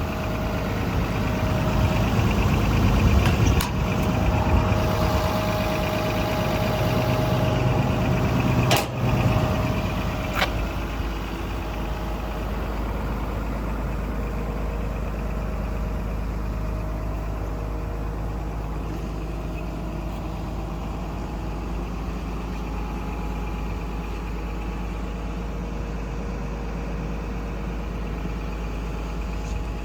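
Komatsu PC200-11 hydraulic excavator's diesel engine running. For about the first ten seconds it is louder, with a steady whine on top and three sharp knocks, as the machine is put through its motions. From about eleven seconds on it settles to an even, quieter idle.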